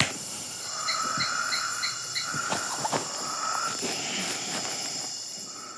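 Night chorus of tropical insects and frogs: a steady high-pitched insect trill, a lower droning call through the middle, and a quick run of about six short, evenly spaced pips in the first half. It fades out near the end.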